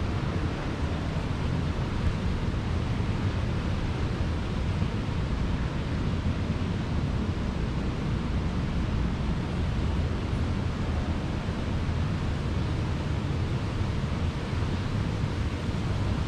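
Steady rushing background noise inside a large humid greenhouse dome, heaviest in the low end, unbroken and without distinct events.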